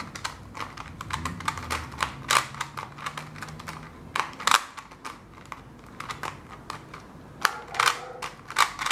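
Rubik's Clock being turned and reset by hand: irregular bursts of sharp plastic clicks from its dials and pins, some spaced out and some in quick runs.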